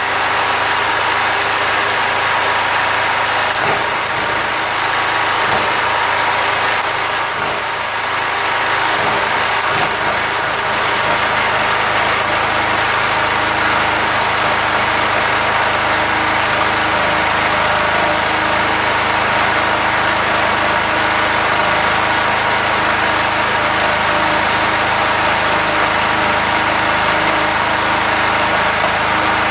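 Multipro GG 3900 portable generator engine running steadily under the load of an inverter stick welder, with the crackle and sizzle of the welding arc over it.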